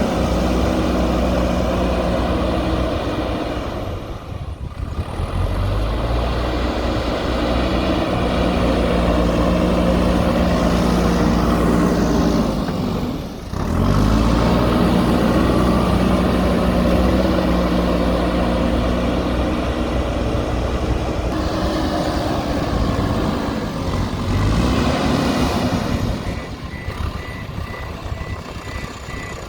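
Diesel engine of a JCB backhoe loader running hard under load. Its pitch drops away briefly twice, about 4 and 13 seconds in, then it picks back up. Near the end a reversing alarm beeps steadily over the engine.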